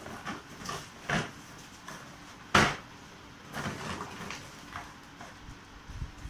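Cardboard box being opened by hand, its flaps pulled apart and the box shifted and tilted: a string of short scrapes and knocks, the loudest a sharp one about two and a half seconds in.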